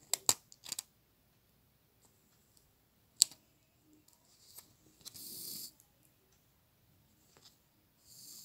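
Small handling noises of hand embroidery: several sharp clicks and crinkles from a foil-and-plastic tablet blister pack and the thread being worked. A little after five seconds, a short rasp under a second long.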